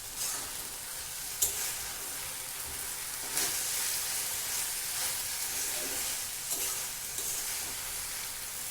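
Vegetables and sauces stir-frying in hot oil on a high flame: a steady sizzle, with the stirring utensil scraping and clinking against the pan a few times.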